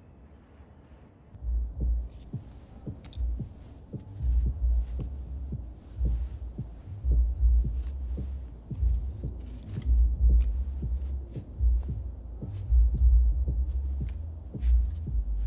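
Deep, heartbeat-like thudding pulses, irregular and often in pairs, starting about a second and a half in. Over them come faint light clicks of wooden clothes pegs being handled.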